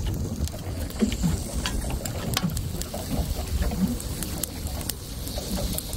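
Wind on the microphone and water against a small boat's hull, a steady low rumble, with scattered light clicks and ticks throughout.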